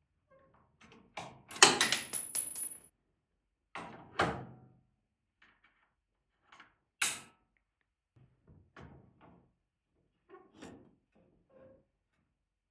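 Steel knocks and clatter as a hydraulic tilt cylinder is handled and slid onto a tractor's three-point lift arm. A rattling run of metal strikes about a second in, one of them ringing briefly, is the loudest. It is followed by a knock around four seconds, a sharp click around seven and lighter taps near the end.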